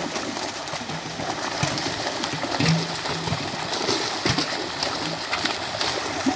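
Water splashing and churning as fish thrash in the shallows inside a drawn seine net, with many short sharp splashes throughout.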